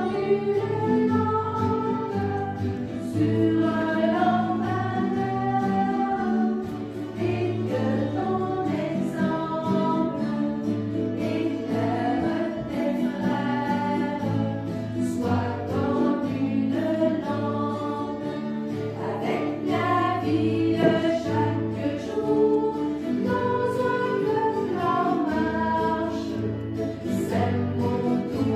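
Choir singing a hymn, with sustained low notes underneath.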